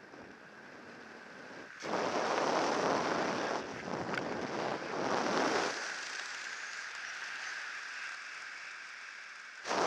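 Wind rushing over a helmet-mounted camera's microphone during a parachute descent under an open canopy, with loud gusts from about two to six seconds in, a steadier rush after that, and a short blast at the very end.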